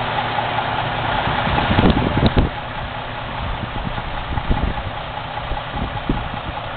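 Heavy truck's engine idling steadily while the truck is hauled by hand, with a cluster of loud knocks about two seconds in and a few fainter ones later.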